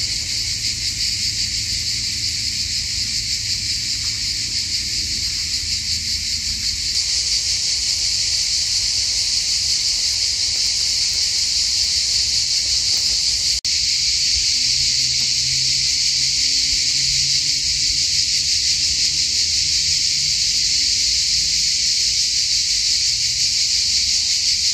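Steady, dense high-pitched chorus of insects buzzing without a break, with a brief dip just past the middle.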